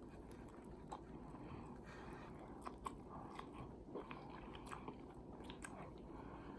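Quiet chewing of smoked beef short rib close to the microphone: soft, scattered wet mouth clicks.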